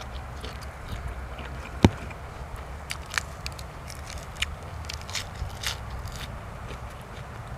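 A person eating giant octopus tentacle with fresh vegetables: biting and chewing, with scattered crisp snaps and clicks. The loudest is a single sharp click about two seconds in.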